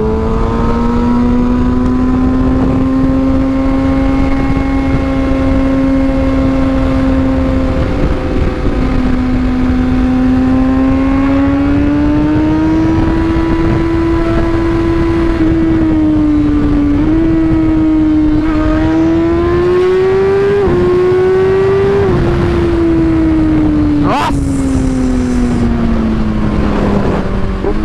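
Kawasaki ZX-6R 636's inline-four running at steady high revs through a straight-through SC-Project link pipe with the catalytic converter removed, heard while riding over wind rush. The engine note drifts slowly up and down with a few abrupt steps in pitch in the second half.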